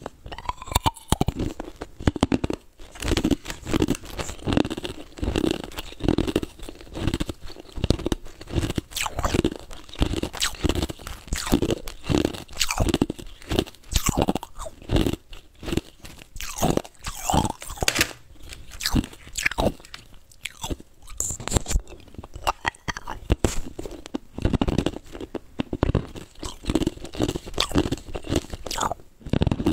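Ice cubes being bitten and chewed, close-miked at the mouth: a steady run of sharp, irregular crunches, a few each second, as the ice breaks between the teeth.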